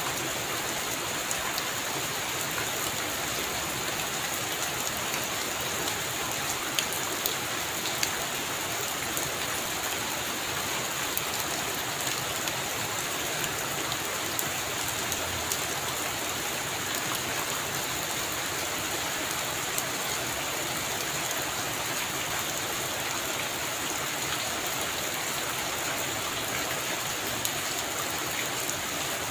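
Heavy rain falling steadily, a dense even hiss with many sharp drop ticks scattered through it.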